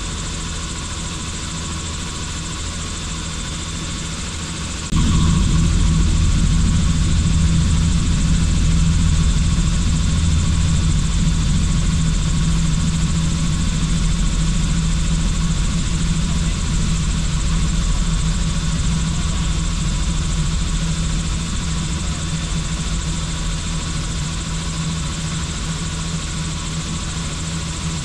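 Helicopter in flight, heard from the cabin: a steady high whine over the low drone of the engine and rotor. About five seconds in, the low drone suddenly becomes much louder, then eases off slightly toward the end.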